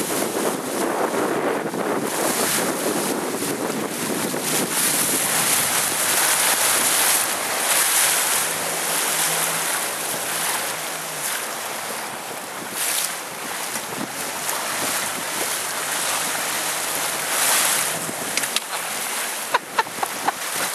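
Strong wind buffeting the microphone over choppy sea, with waves and water rushing throughout. A few sharp knocks come near the end.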